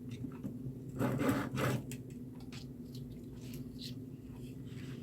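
Hands handling small parts at a workbench: a short rubbing, scraping rustle about a second in and a few light clicks, over a steady low hum.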